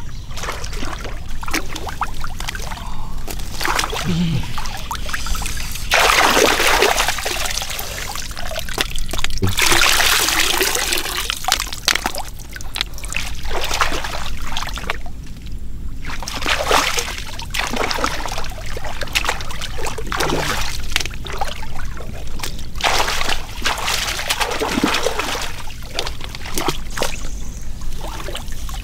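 Shallow water splashing and trickling in irregular bursts, loudest about six and ten seconds in.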